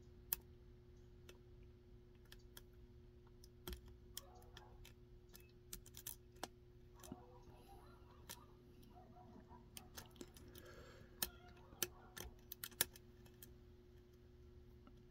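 Faint, irregular metal clicks and ticks of a lock pick and tension wrench working the pin tumblers of an old Yale cylinder lock, a pin setting now and then. The lock is old and crunchy.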